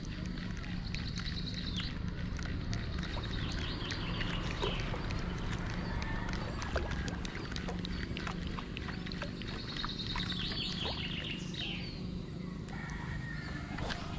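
A bird calling with a rapid high trill, heard twice about eight seconds apart, each ending in a falling note. Under it run a steady low hum and scattered small clicks.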